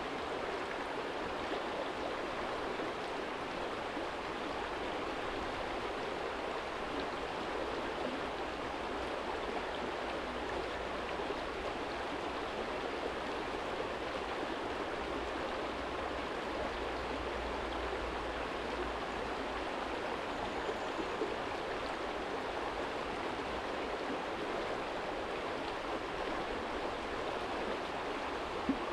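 Small shallow stream flowing and splashing over stones, a steady, even rush of water.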